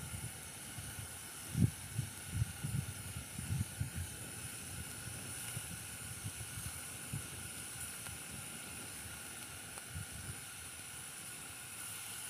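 Wind buffeting the microphone in irregular low rumbles, strongest about a second and a half in and easing off after a few seconds, over a steady high-pitched outdoor drone.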